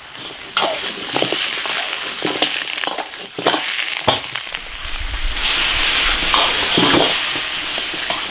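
Blanched beef ribs sizzling in hot oil in an iron wok while being stirred, with repeated sharp knocks and scrapes. The sizzle swells louder about five seconds in.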